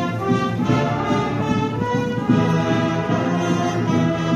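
An Andalusian Holy Week agrupación musical, a band of trumpets, trombones and other brass, playing a processional march in held chords.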